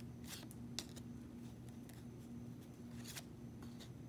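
Faint clicks and light rustling of stiff cardboard trading cards being handled and shifted between the fingers, with a few sharp ticks, over a steady low hum.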